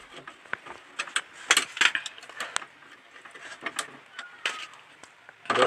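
Screwdriver and wire working a screw terminal on a star-delta starter panel: scattered light metallic clicks and scrapes as the wire is seated and the screw tightened.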